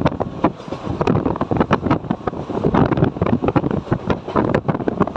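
Wind buffeting the microphone in irregular gusts over the rushing running noise of a moving Mumbai suburban local train.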